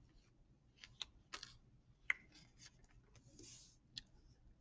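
Faint scattered clicks and light taps, about five over a few seconds, the sharpest about two seconds in, with a brief soft hiss a little after three seconds.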